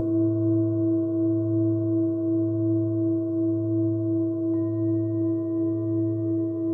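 Himalayan singing bowl struck once, then ringing on steadily with a low hum and a few higher overtones whose loudness wavers slowly.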